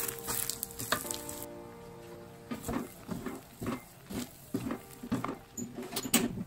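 Wooden spatula stir-frying rice noodles and egg in a stainless steel wok: the food sizzles in the hot pan while the spatula scrapes and tosses in repeated strokes, about two or three a second from about two seconds in.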